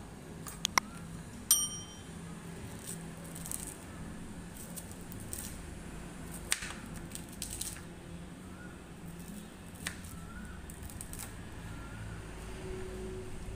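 A knife slicing boiled bamboo shoot on a plastic chopping board, making scattered light taps. Near the start, two sharp clicks and a ringing bell ding come from a subscribe-button animation.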